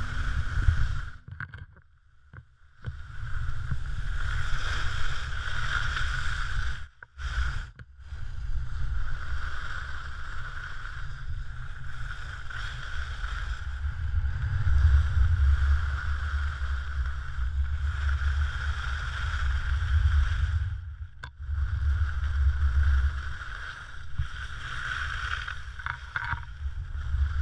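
Wind rumbling on the microphone of a GoPro Hero3 action camera, with skis running over snow during a downhill ski run. The sound is steady and cuts out briefly three times.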